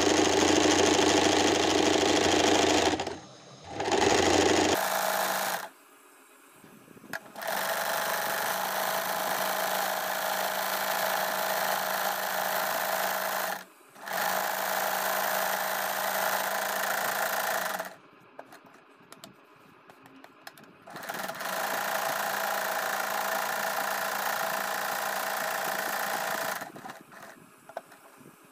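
Usha Stitch Magic electric sewing machine stitching a decorative square-fill embroidery pattern on fabric. It runs steadily in spells of several seconds with short pauses between them, the first spell louder than the rest, and stops near the end.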